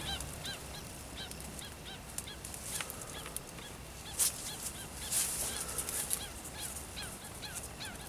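Birds calling again and again with short chirps that rise and fall, a few each second, as they swoop at intruders near their nests. Dry reeds rustle in short bursts against the camera, loudest about four and five seconds in.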